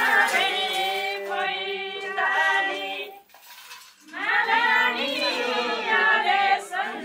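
Group of men and women singing a Kinnauri folk song together without instruments, breaking off for about a second partway through before starting the next line.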